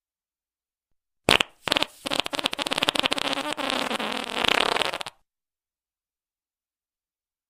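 Fart sounds: a short blast about a second in, then a long, rapidly fluttering fart with a wavering pitch lasting about three seconds, which cuts off suddenly.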